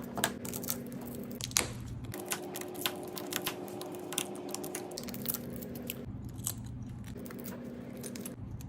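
Scattered small clicks and brittle crackling of an iPhone 11's shattered back glass being tapped and chipped away, over a faint steady hum.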